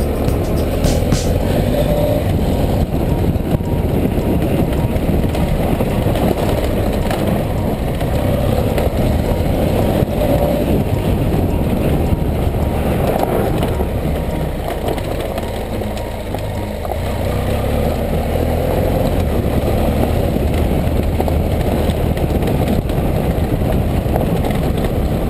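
BMW F 800 GS parallel-twin engine running as the motorcycle rides along a gravel track, mixed with tyre noise on the gravel. A steady, loud rumble that eases slightly about two-thirds of the way through.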